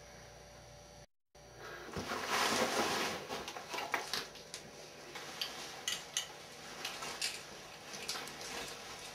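Handling noises starting about two seconds in: rustling with many small clicks and taps as a vest of dynamite sticks and wires is handled, loudest at the start and then scattered.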